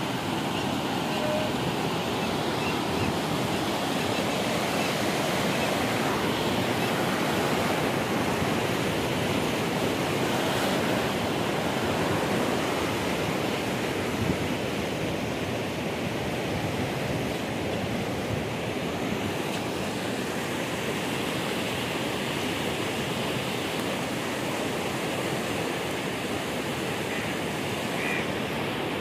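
Turbulent floodwater rushing out through the gates of a river barrage: a steady, unbroken rush of churning water.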